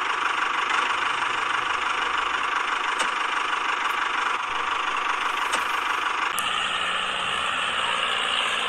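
Small electric gear motors of toy tractors whirring steadily as they drive; the sound shifts slightly about six and a half seconds in.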